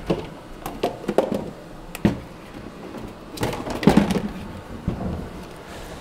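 Things being handled and set down in a kitchen: a string of separate knocks and clunks, with the loudest cluster about four seconds in.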